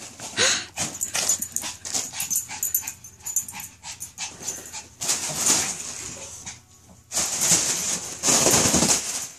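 Yorkshire terrier worrying at a balloon, with dog noises: a run of short clicks and scrapes for the first few seconds, then several breathy bursts about a second long toward the end.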